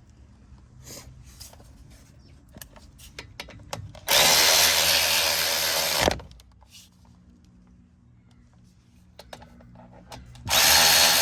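Handheld power tool running at speed in two steady bursts of about two seconds each, the first about four seconds in and the second near the end, driving in the brake caliper bolts. Light metal clicks and knocks come before the first burst.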